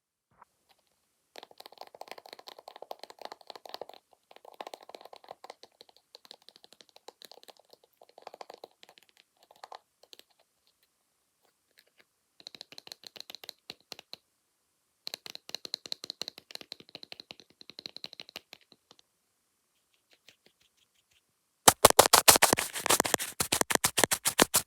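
Fast tapping and scratching on a camera lens with makeup tools, in bursts of a few seconds with short pauses. About 22 seconds in comes a much louder run of rapid taps.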